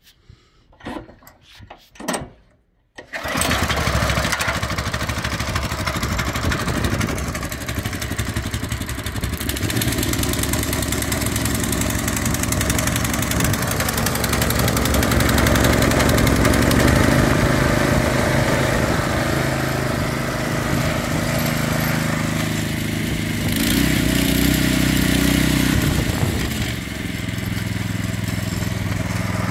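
A 212cc single-cylinder OHV four-stroke engine on a walk-behind tiller/cultivator starting about three seconds in and then running steadily. Its speed rises for a couple of seconds near the end and then drops back.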